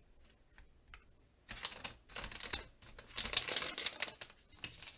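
Hard plastic card holders being handled and set on their stands: a run of quick clicks and plastic rustling, busiest in the middle and ending just before the end.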